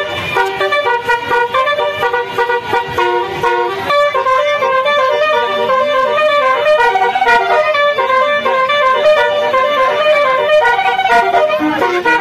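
Bus 'telolet basuri' musical horn playing a melody: loud, sustained horn notes sounding several at once and stepping from note to note every fraction of a second.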